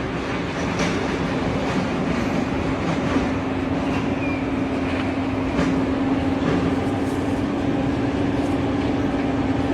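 Steady mechanical running noise with a constant low hum and a few faint ticks.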